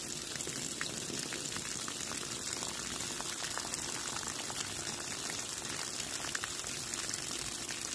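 Garden hose water running steadily and splashing onto the ground, from a spray nozzle pushed against one heater hose and from the other heater hose pouring out rusty water as the heater core is flushed.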